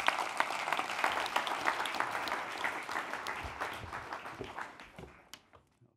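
Audience applauding, a dense patter of many hands clapping that thins out and fades away over the last two seconds or so, stopping just before the end.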